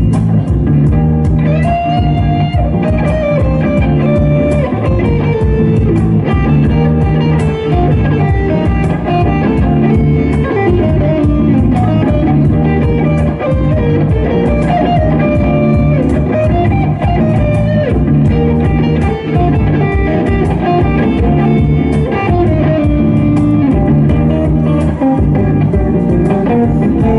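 Live rock band playing an instrumental passage, with a lead guitar soloing in bending, gliding lines over bass and drums.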